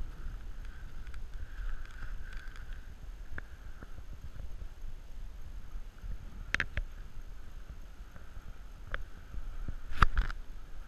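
Low, fluctuating rumble of wind buffeting the microphone, with a few scattered clicks and a sharp knock near the end as the camera is swung around.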